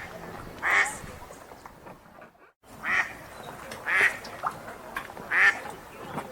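Wild ducks quacking at a lake: four separate short quacks, about one to two seconds apart, over a low background hiss. The background drops out briefly about two and a half seconds in.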